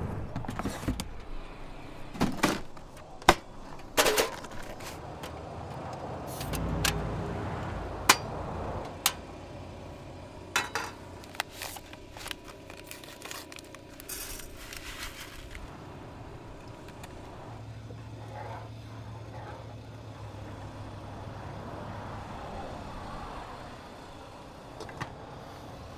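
Camp cooking gear being handled: a plastic cooler set down, then a run of sharp clicks and knocks from a portable gas stove, pot and packets over the first half. After that comes a quieter stretch with a steady low hum.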